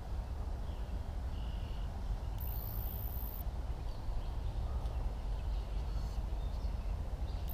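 Steady low outdoor background noise with a few faint, short bird chirps.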